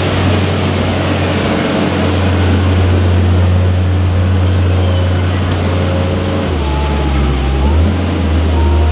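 Diesel engines of a Weidemann compact loader and a farm tractor running while the loader lifts its bucket and tips a load into the tractor's trailer. The low engine note shifts about six and a half seconds in.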